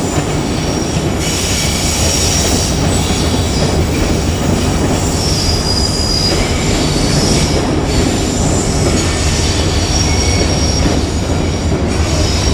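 JR Kyushu 817 series electric train running past with a steady loud rumble and high-pitched wheel squeal that comes and goes.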